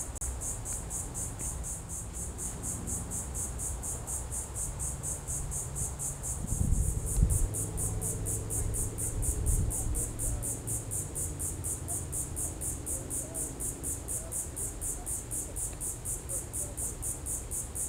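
Insects chirping steadily in a fast, even, high-pitched pulse, about four chirps a second. A low rumble comes and goes underneath, loudest about seven seconds in.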